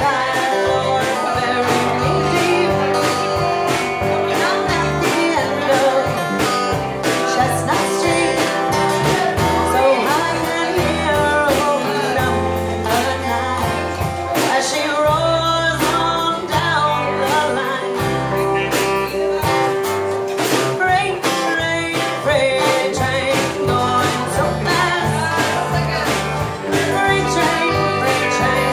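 Live band playing a country-flavoured roots-rock song: electric and acoustic guitars and bass guitar over a steady beat, with singing.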